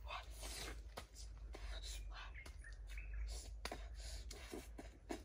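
Quiet forest sound: faint bird chirps, with a few sharp clicks and soft rustling from hands working a wild fruit.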